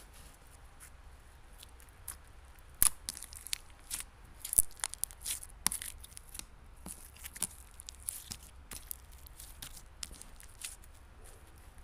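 Jelly cube slime being stretched and squished by hand, giving irregular sticky pops and crackles.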